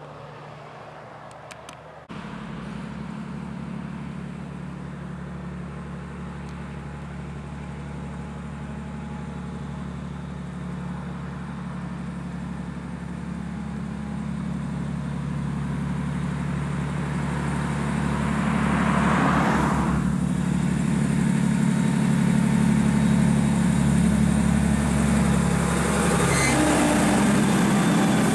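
Heavy diesel truck-and-trailer unit (a tipper hauling aluminium bins) running steadily on the climb, getting louder as it approaches and passes close by. There is a brief rushing hiss about two-thirds of the way in.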